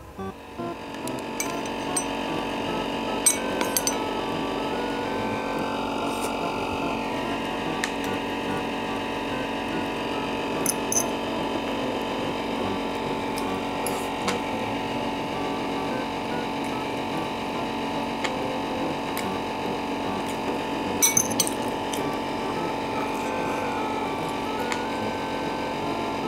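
A steady machine hum with several fixed tones, over which a few sharp clinks of a utensil against the bowl of food ring out, two of them about 3 and 21 seconds in.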